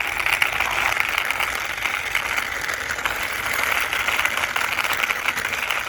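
Plastic toy car pushed by hand along a rough hard surface, its wheels rolling and scraping with a steady gritty rattle.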